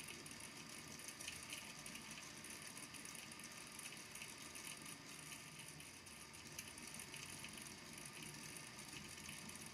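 Faint, continuous clicking of many small balls tapping on the base of a volcano lamp's water tank as they sink and are pushed up again.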